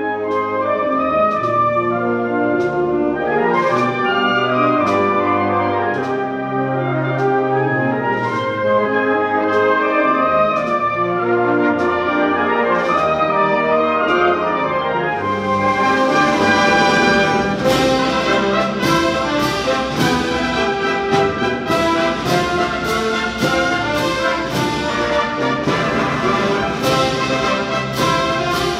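Wind band playing a Spanish procession march. Brass carries the melody over low brass, with a percussion stroke about once a second. About halfway through, the band swells fuller and brighter, with denser percussion strokes.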